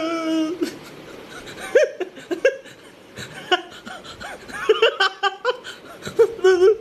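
People laughing and chuckling in short, scattered bursts, growing more frequent and loudest near the end.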